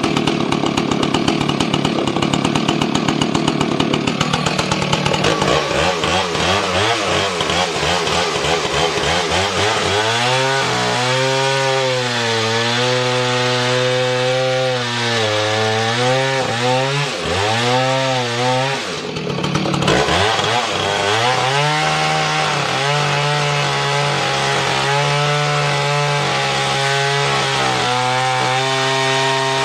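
Big Husqvarna two-stroke chainsaw running in a cut. It starts at high revs, then drops into a lower, labouring note that wavers up and down as it is loaded. Its revs fall away briefly about two-thirds of the way through, then it settles into a steadier pull.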